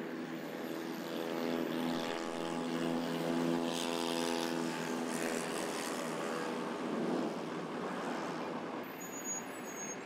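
Road traffic with a heavy diesel truck's engine running steadily, loudest from about one to six seconds in, with a short hiss about four seconds in.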